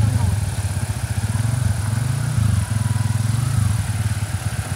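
Heavy truck's diesel engine running with a fast, even low throb, the engine note lifting briefly about two and a half seconds in.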